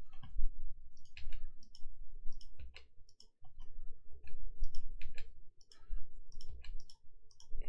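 Irregular clicking of a computer mouse and keyboard keys, with low thumps under the clicks.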